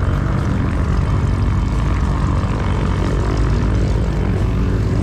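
Small propeller aeroplane's piston engine running at a steady drone, with a deep hum under an even, airy noise.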